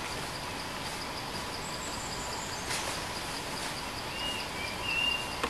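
Insects chirping in an even, rapid pulse over steady forest background noise, with a few short whistled bird notes about four to five seconds in.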